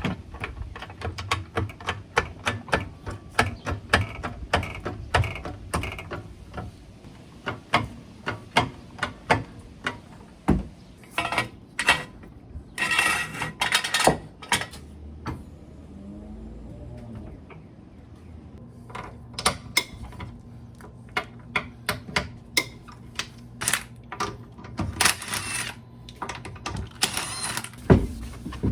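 Hand ratchet clicking in runs of quick strokes, as bolts are run in during front brake reassembly, with brief pauses and a few rattling handling noises between runs.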